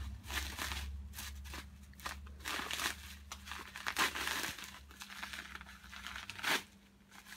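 Plastic bubble wrap being pulled apart and unwrapped by hand, crinkling and rustling in irregular bursts, loudest about four seconds in.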